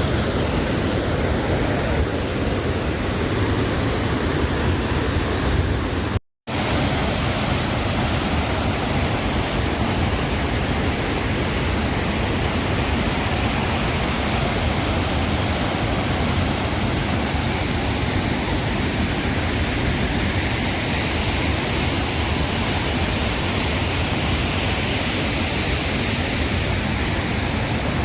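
Waterfall rushing: a steady, even wash of falling water, broken by a momentary dropout about six seconds in.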